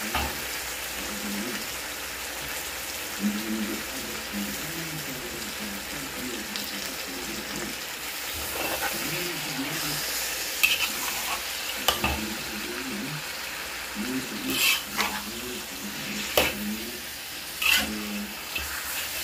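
Chopped chicken pieces sizzling in a hot wok while a spatula stirs them, scraping and knocking against the pan several times in the second half.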